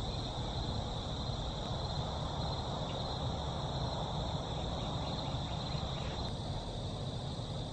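Crickets chirring steadily in a continuous high band, over a low steady background rumble.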